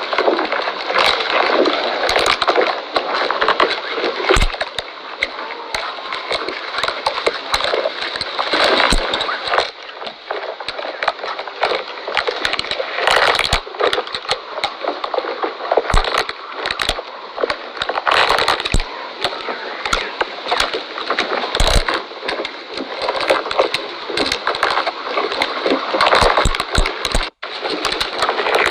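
Camel chewing cactus: continuous wet crunching with many sharp cracks.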